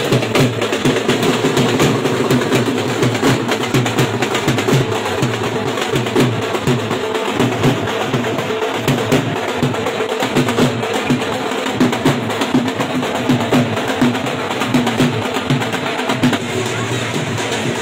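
Dhol drums beaten with sticks in a steady, rapid rhythm.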